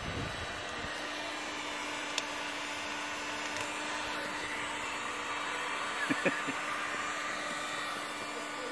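Electric heat gun running, its fan blowing steadily with a steady hum, held against old hull lettering to soften it for peeling. A few light taps about six seconds in.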